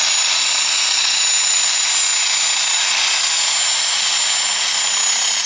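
Light super class pulling tractor's turbocharged diesel engine running flat out under load during a pull: a loud, steady rush with a high, level whine on top.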